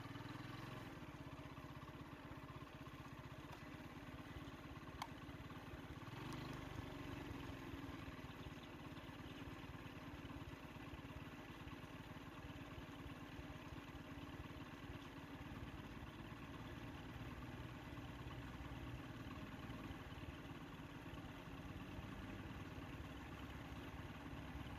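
A vehicle engine idling steadily, with a low, even throb.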